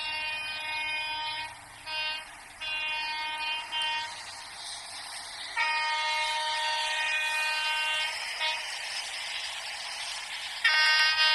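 Indian Railways train horn sounding a series of long, steady blasts with short gaps between them, the next one starting near the end.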